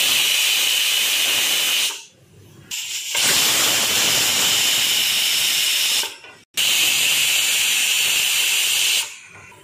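Stovetop pressure cooker whistling: steam hisses out from under the weight valve in three long blasts, each with a steady high tone inside the hiss. These are the three whistles that mean the chicken inside is cooked and the gas can be turned off.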